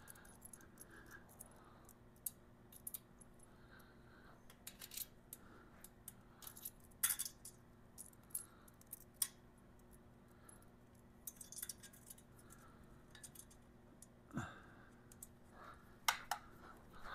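Faint, irregular metal clinks and jingles as exhaust springs are hooked onto a steel exhaust pipe joint with a spring puller tool.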